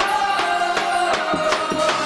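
Upbeat festa junina music: percussion keeps a steady beat of about three hits a second under a sustained melody line.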